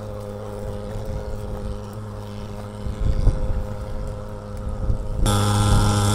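Portable thermal fogging machine running, a steady pitched engine drone as it blows out disinfectant fog; it becomes louder and brighter about five seconds in. A brief low rumble about halfway through.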